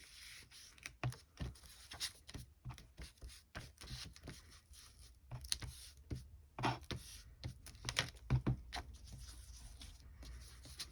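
Ink applicator dabbed and rubbed along paper edges to age them with ink: a run of irregular soft taps and brushing scuffs on paper.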